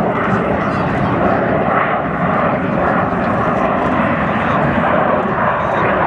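Loud, steady jet noise from a Dassault Rafale fighter's twin engines as it climbs steeply overhead.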